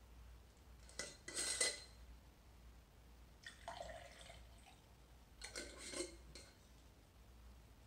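Clinks of a glass mason jar and its metal screw lid being handled, about a second in and again near six seconds, with a short trickle of water poured from the jar into a glass vase between them.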